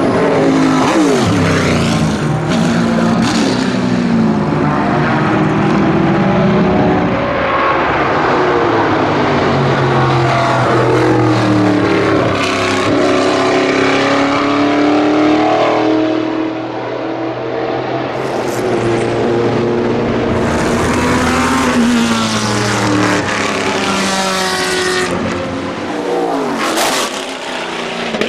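Group C race car engine at full racing speed, the 1989 Aston Martin AMR1's 6-litre V8 running hard and revving up and down through the gears. Its pitch drops sharply as a car passes, just after the start and again near the end.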